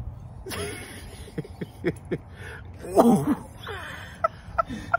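Men's quiet non-word vocal reactions: soft murmurs and a gliding exclamation about three seconds in, with a few small sharp clicks between them.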